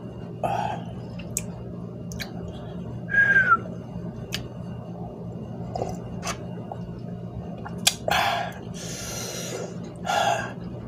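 A person eating very spicy instant noodles: chewing and small mouth clicks, broken by short breathy sniffs and a longer hissing breath about eight seconds in. The chili heat is giving him a runny nose.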